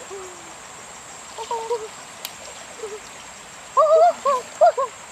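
Shallow stream trickling over rock, with a series of short, pitched calls from an unseen creature: a few faint ones, then a louder run of about five near the end.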